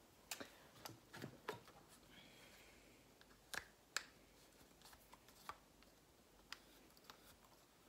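A dozen or so faint, sharp clicks and taps at irregular intervals: makeup brush handles knocking against a plastic brush holder as washed brushes are handled and put away.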